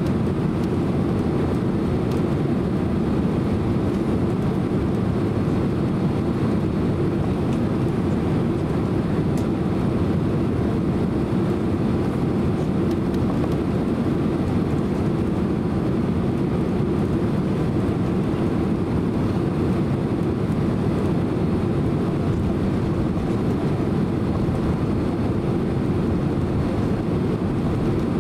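Steady low cabin rumble inside a Boeing 767-300 as it taxis after landing.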